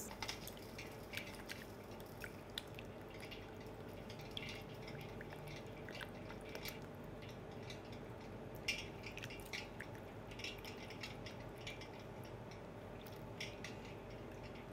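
Faint water splashing and dripping as hands rub salt-cured duck legs in a stainless-steel bowl of water, rinsing off the salt cure. Small splashes come irregularly over a steady low hum.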